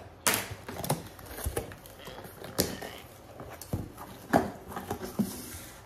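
Cardboard shipping box being opened and its contents handled: soft rustling with scattered sharp knocks and clicks, the strongest just after the start and about four seconds in.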